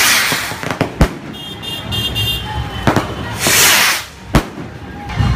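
Skyrocket fireworks launching with a rushing hiss and bursting with sharp bangs: two launches, each followed by a loud bang under a second later, with smaller cracks between.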